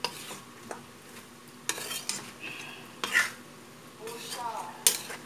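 Metal spatula scraping and stirring chicken pieces in a metal wok, four strokes an uneven second or two apart, as the adobo sauce cooks down to a glaze over the gas flame.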